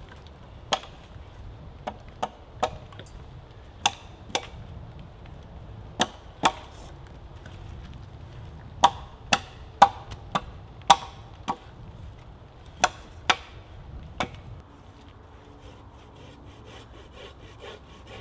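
Hatchet chopping into a standing wooden post: about seventeen sharp, irregular strikes, often in quick pairs, that stop about fourteen seconds in.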